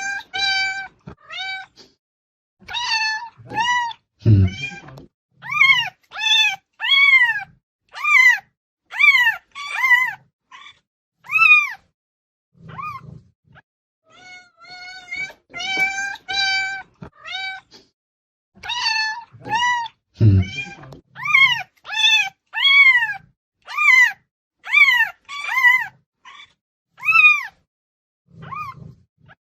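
Cats meowing loudly, over and over: short meows that rise and fall in pitch, one after another, with a pause of a few seconds in the middle. A dull low thump comes twice.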